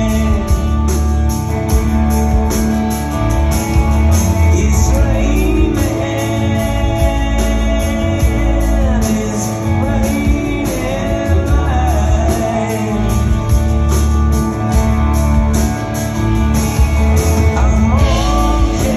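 Live rock band playing loud through the venue's PA: acoustic guitar, bass and drums with a steady cymbal beat, and a voice singing over it.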